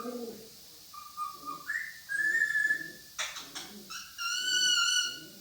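Pet parrot whistling: a rising whistle about a second in, a short harsh call around the middle, then a long held whistled note near the end. Soft low calls run underneath.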